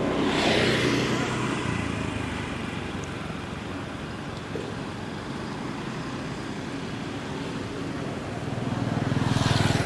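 Road traffic: steady engine hum with vehicles going by, one swelling up about half a second in and another near the end.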